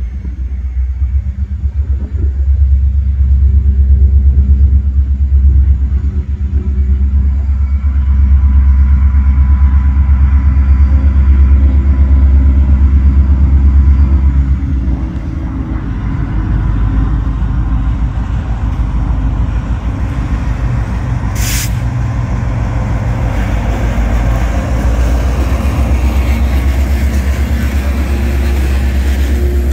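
Great Lakes Central diesel-electric locomotive approaching and passing close by with a loud, deep engine rumble that eases about fifteen seconds in as it goes past. Loaded freight hopper cars then roll by with steady wheel noise on the rails, and a brief sharp high sound comes about two-thirds of the way through.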